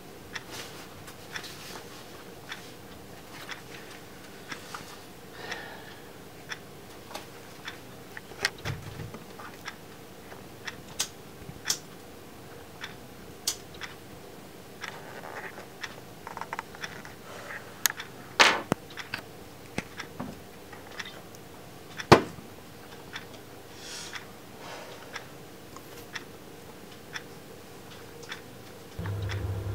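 Quiet room with a clock ticking and scattered small clicks and handling noises of a man moving about, among them a cigarette lighter being struck. Two sharper clicks stand out later on, and a steady low hum starts just before the end.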